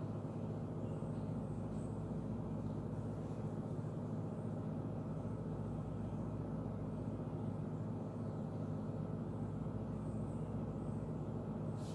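Steady low mechanical hum with no change in pitch or level.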